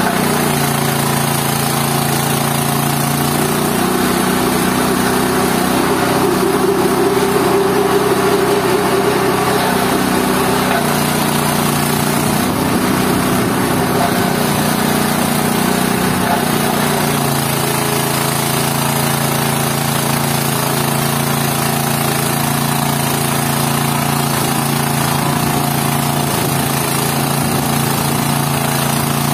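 GT-14 organic-waste pulper machine running steadily while grinding vegetable waste into mash. Its motor hum shifts slightly in pitch a few times.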